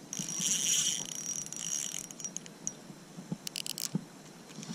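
Marine Sports Tiga 600 spinning reel and braided line working as a hooked tilapia is played on an ultralight rod: a hissing buzz of about two seconds, then a quick run of sharp clicks about three and a half seconds in.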